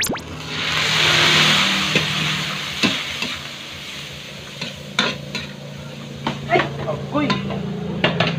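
Soy sauce poured into a hot metal wok of frying chopped pork intestines and dried chili: a loud sizzle builds about half a second in and dies down over a couple of seconds. After that a steel spatula scrapes and clacks against the wok as the mix is stirred, over a quieter steady frying.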